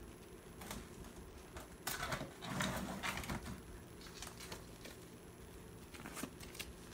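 Ring binders with plastic covers being handled and set down: scattered soft knocks and rustling, with a louder stretch of rustling and scraping about two to three seconds in.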